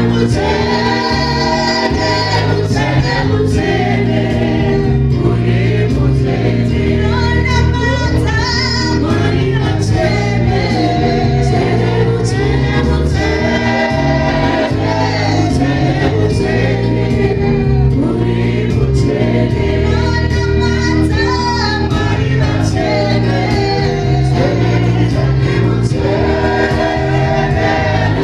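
Church worship team singing a Shona gospel praise song, women and a man singing together through microphones and a PA, over steady amplified backing music.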